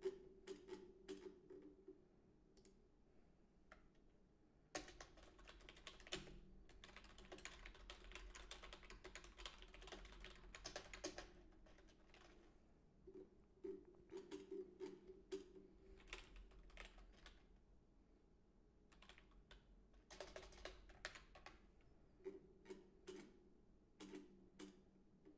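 Faint typing on a computer keyboard. Scattered key clicks are broken by a long fast run of typing a few seconds in and a shorter run later on.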